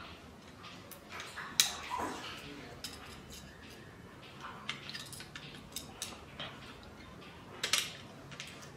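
Small clicks and clinks of a Moto G8 Power Lite's parts being handled and snapped together by hand, with two louder sharp clicks, one about one and a half seconds in and one near the end.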